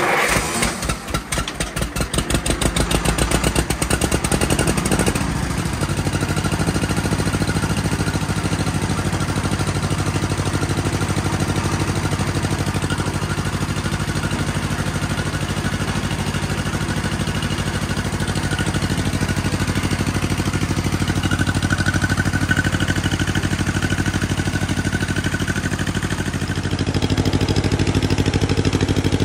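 John Deere 420W tractor's two-cylinder engine starting up and running unevenly for the first few seconds, then settling into a steady idle. It runs a little louder near the end.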